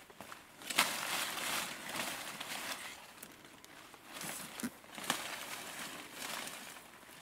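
Footsteps through dry leaves and forest undergrowth, with foliage brushing and crackling against the walker in irregular swishes and a few sharper snaps.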